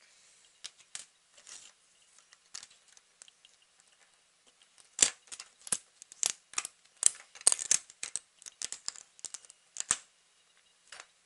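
Plastic Lego pieces clicking and snapping together under the fingers and tapping on the table: a few scattered clicks at first, then a dense, irregular run of sharp clicks from about halfway in.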